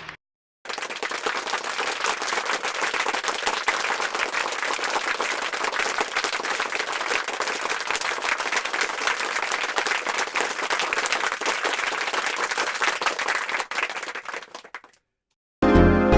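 Crowd applause, many hands clapping at a steady level, tapering off and stopping near the end. Music starts just before the end.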